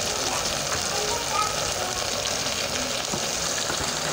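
Steady sizzling from a pot of potatoes frying in tomato sauce on the stove, as shredded greens are pressed into it by hand.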